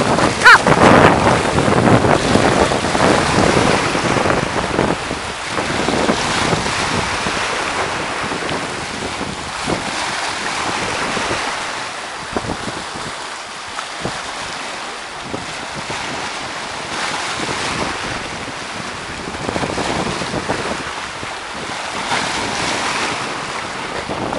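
Sea surf breaking and washing over shoreline rocks, rising and falling every few seconds, with wind buffeting the microphone.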